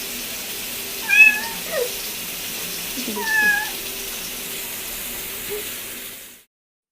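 A cat meowing a few times, the longest call about three seconds in, over a steady hiss. The sound cuts off suddenly near the end.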